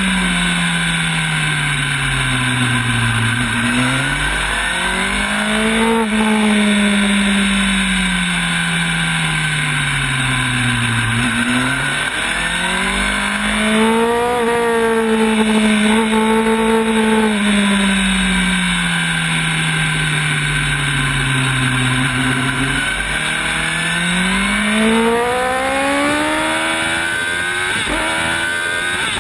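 Sport motorcycle engine heard from the bike itself on a track lap: its pitch slides down as it slows into corners and climbs again under acceleration, several times, with a long climb near the end. Steady wind rush runs underneath.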